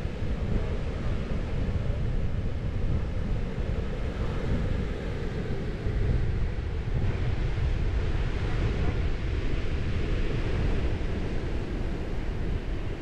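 Steady wind rushing over the microphone: a continuous low rumble with a hiss above it.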